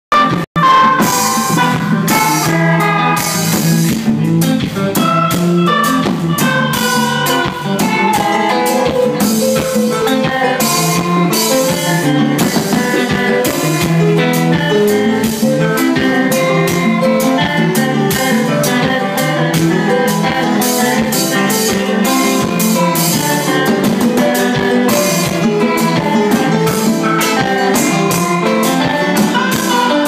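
Live kompa band playing: electric guitar over a drum kit with a steady beat of cymbal strokes. The sound cuts out briefly about half a second in, then the music carries on loud and steady.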